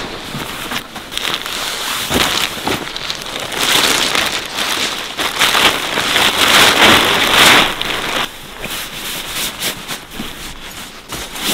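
Fabric rustling as a stuff sack is handled and a sleeping bag is pulled out and shaken open by hand. It is loudest from about four to eight seconds in, then drops to softer rustles and crackles.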